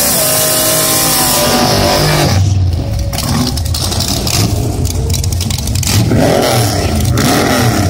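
Vintage Willys gasser drag car doing a burnout: the engine revs hard and bounces up and down while the rear tires spin. After about two seconds it settles into a heavy, deep drone, then revs up and down again near the end.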